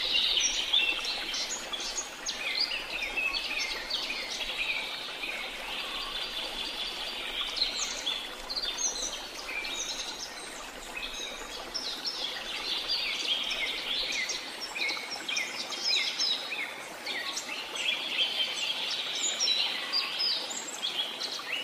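Songbirds chirping and singing: a dense, unbroken run of short, high chirps and trills, several notes overlapping at once.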